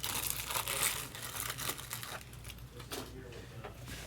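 Quick light clicks and crinkles from handling things at a desk. They are dense for about two seconds, then thin out to scattered ticks.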